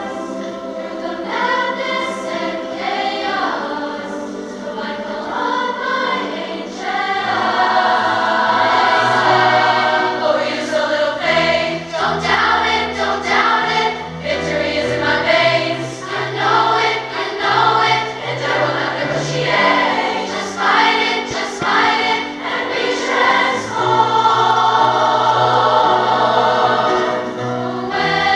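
Large massed choir of girls' and women's voices singing a piece in harmony with piano accompaniment. Low bass notes join about seven seconds in and the singing grows louder.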